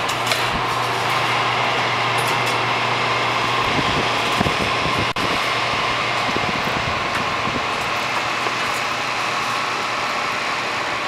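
Bi-fold aircraft hangar door being raised on its steel lift cables by its electric winch: a steady mechanical running noise, with a low hum that drops away about four seconds in.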